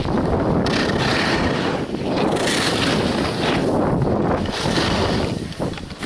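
Wind buffeting the microphone of a skier's camera during a downhill run, a loud steady rushing rumble with hiss from skis sliding on the snow. It briefly drops near the end.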